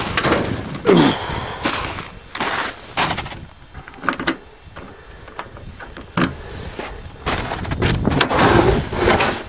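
A snow-covered car door being opened: clicks and knocks of the outside handle and latch as the door is pulled open, with rustling and scraping between them.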